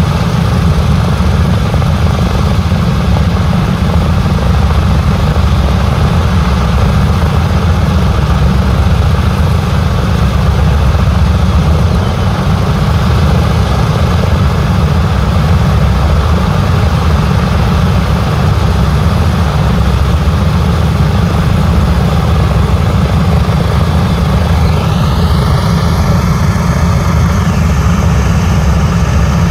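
B-17 bomber's Wright R-1820 Cyclone radial engines idling on the ground: a steady, deep, even rumble.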